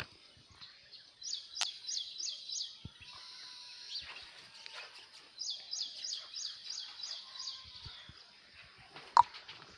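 A bird singing: two runs of quick, high, repeated notes, about four a second. A single sharp click near the end is the loudest sound.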